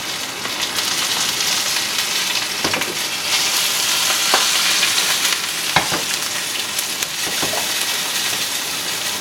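Steak searing in a very hot pan with olive oil, garlic and thyme: a steady sizzle, louder in the middle, with a few sharp clicks.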